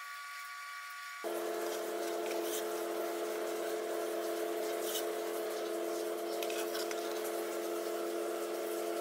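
Sustained ambient background music: a held chord that switches abruptly to a lower chord about a second in. A few faint light clicks sound underneath.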